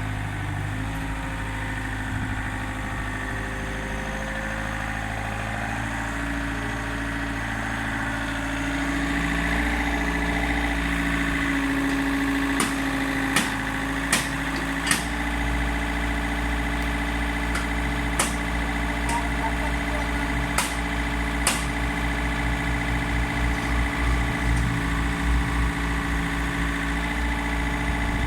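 Excavator's diesel engine running steadily, growing slightly louder and higher-pitched about nine seconds in. Around seven sharp knocks come through the middle stretch.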